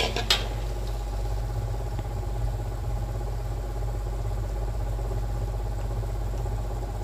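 Ground shallot-and-garlic spice paste sautéing in oil in a steel wok on the stove: a steady low rumble, after a metal spatula clinks against the wok once just at the start.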